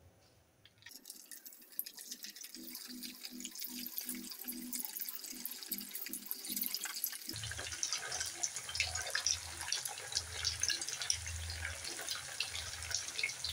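Semolina and raw potato snack squares deep-frying in hot oil in a pan: a crackling sizzle that starts about a second in as the pieces go into the oil and grows fuller about halfway through. Soft low thumps come in the second half.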